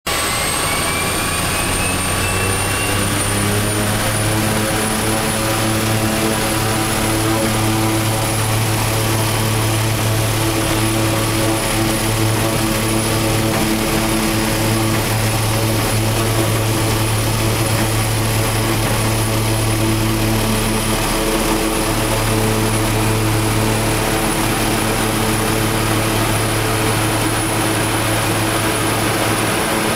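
A de Havilland Otter's engine and propeller at takeoff power, heard from inside the cockpit: a loud, steady drone. A faint high whine rises in pitch over the first few seconds as the throttle is pushed forward, then holds.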